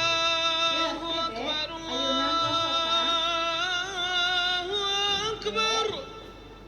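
Background music: a melody of long held notes that slide and bend, fading out about six seconds in.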